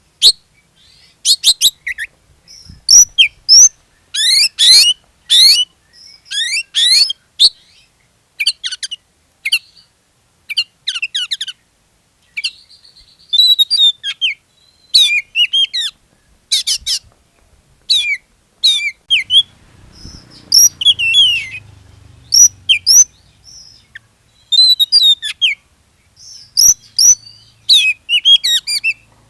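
Oriental magpie-robin (kacer) in full song: a run of short, rapid whistled phrases with quick up-and-down pitch sweeps and chattering notes, broken by brief pauses.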